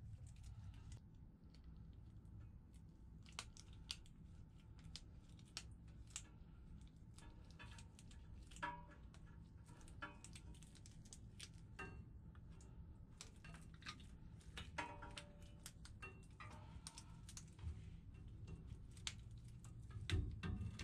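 Scattered light clicks and rattles of a red link V-belt's segments being handled and worked onto blower pulleys, over a low steady hum; the clicks grow louder near the end.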